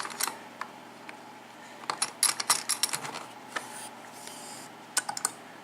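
Metal lock and holder being set into a bench vise and clamped: a series of sharp metallic clicks and clatters, with a short scrape about four seconds in.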